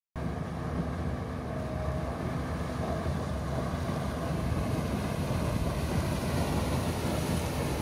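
Haldrup plot combine harvesting a corn trial plot, its engine and threshing running as a steady noise. It starts abruptly and grows slightly louder as the combine comes through the rows.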